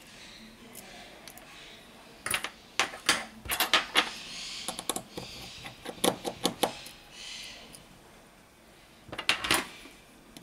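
Metal tweezers clicking and tapping on the inside of a disassembled smartphone: small sharp ticks in four short clusters, with soft handling rustle between them.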